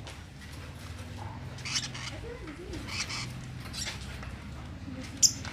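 Lovebirds chirping in a few short, sharp, high calls about a second apart over a low steady hum, with one sharp click near the end.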